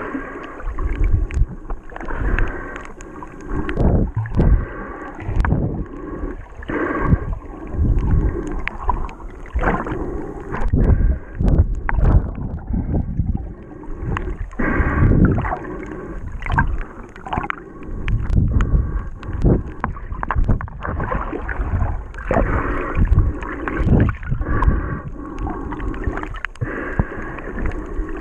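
Muffled underwater noise of water moving and gurgling around a handheld camera held below the surface, in uneven surges about once a second.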